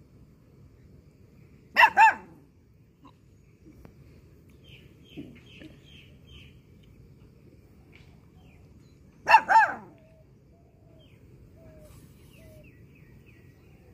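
An animal gives two loud double calls, short and pitched, one about two seconds in and one near ten seconds in. Faint small bird chirps come in between.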